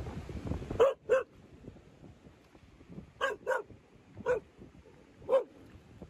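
A dog barking six short, sharp barks: a quick pair about a second in, another pair a little past halfway, then two single barks. Wind buffets the microphone during the first second.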